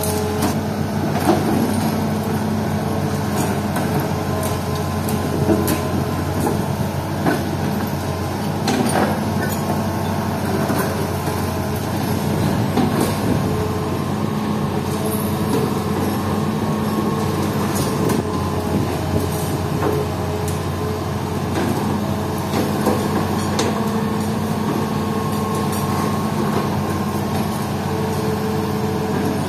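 Hitachi Zaxis excavator's diesel engine running steadily while its hydraulic demolition pulverizer crushes concrete and brick rubble. Scattered cracks and knocks of breaking debris come through the engine sound.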